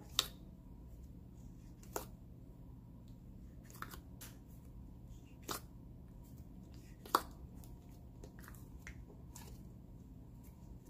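Slime being pressed and folded by hand in a plastic tub, a clear slime and a soft base slime being mixed together, giving sharp bubble pops and clicks every second or so.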